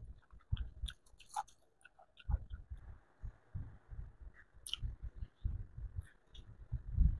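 A person chewing pieces of mango and pineapple dipped in shrimp paste, close on a lapel microphone: runs of soft low chewing thumps with small wet mouth clicks in between.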